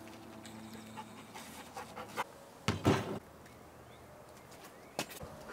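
A person breathing hard, with a few short huffs and one loud, noisy breath close to the microphone about three seconds in.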